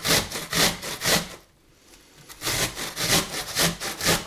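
Onion being grated on the coarse holes of a stainless steel box grater: rasping strokes about three a second, with a pause of about a second partway through.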